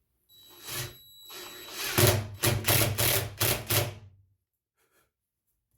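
Power drill driving a screw into wood. The motor whines steadily at first, then runs in about five short, louder pulses and stops about four seconds in.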